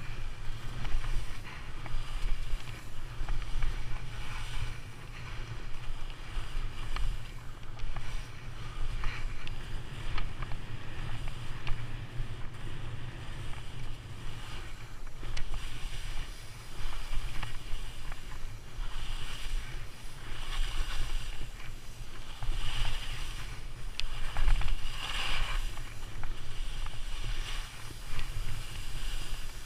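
Skis carving and hissing through soft spring snow in a steady run of turns, swelling with each turn, over a constant rumble of wind on the microphone.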